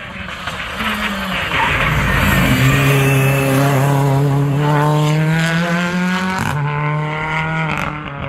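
Rally car engine passing at speed under hard throttle, rising as it approaches and loud for several seconds. The note climbs and then dips briefly about six and a half seconds in before carrying on.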